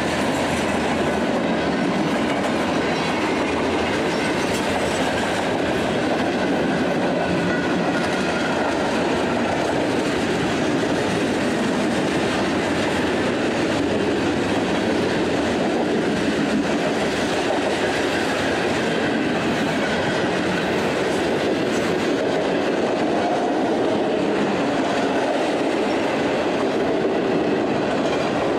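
Freight cars of a long mixed freight train rolling past at steady speed: the continuous rumble of steel wheels on rail, with clickety-clack over the rail joints.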